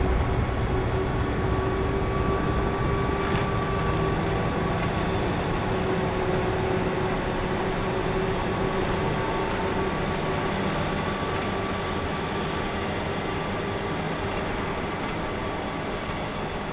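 Two-car diesel cog railway train running steadily with a whine, fading slowly as it draws away.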